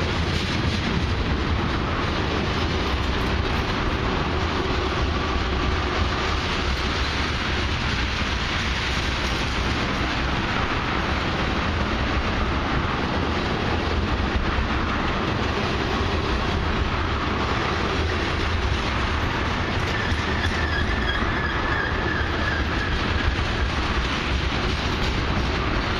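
Ethanol tank cars of a long freight train rolling slowly past, steel wheels rumbling and clacking on the rails. A faint high wheel squeal comes in about twenty seconds in.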